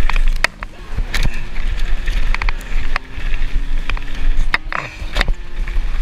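Mountain bike rattling and knocking over a rough trail, with many sharp clacks from bumps and wind rumbling on the GoPro's microphone.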